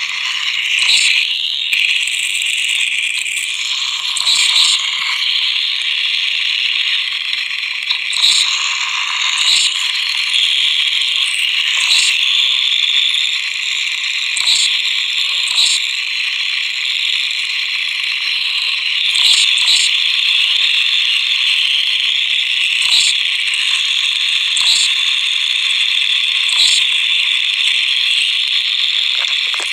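Harsh, rasping ratchet-like noise with sharp clicks every one to three seconds and no singing, forming an instrumental noise passage of the song.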